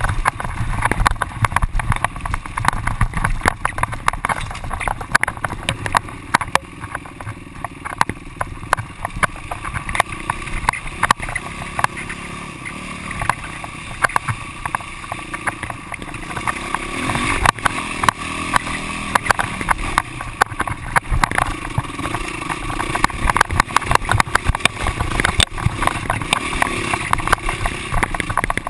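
Yamaha YZ450F dirt bike's four-stroke single-cylinder engine running on a rough dirt trail, with a brief rev-up just past the middle. Frequent knocks and rattles come through as the bike jolts over ruts and rocks.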